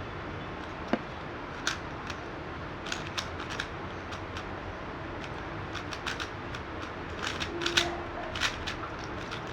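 Magnetic speed cube being turned: irregular clicks and clacks of its plastic layers snapping into place, in scattered clusters.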